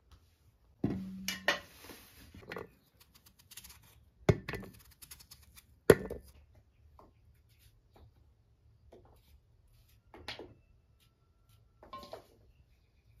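Potatoes and a kitchen knife knocking against a steel bowl as potatoes are peeled and sliced: a few sharp clanks in the first half, the first with a short metallic ring, then softer knife clicks.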